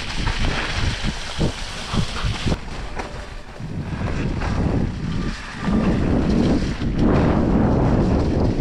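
Mountain bike riding down a rough forest trail: wind buffeting the microphone, a heavy rumble with a few sharp knocks as the bike jolts over bumps, growing louder about halfway through.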